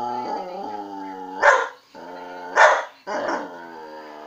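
A dog "talking": long, drawn-out vocal tones that slide in pitch. Two sharp barks about a second apart break them and are the loudest sounds.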